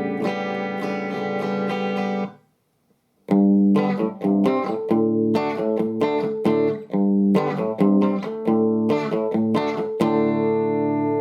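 Electric guitar played through a VOX valve combo amp: ringing chords stop abruptly about two seconds in, then after a short silence a run of sharply struck chords, the last one left ringing.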